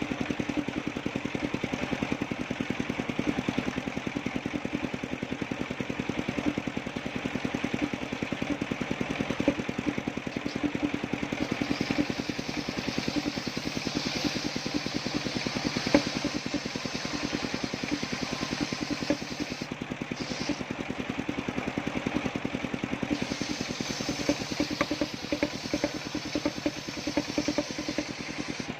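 Engine of a homemade circular-saw sawmill running steadily as it drives the blade through a coconut palm trunk. A higher hiss joins about twelve seconds in and drops out briefly near the twenty-second mark.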